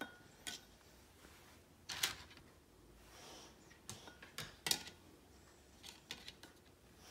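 Dry lasagna noodles handled and set into small pots: a handful of scattered light clicks and taps, two of them louder.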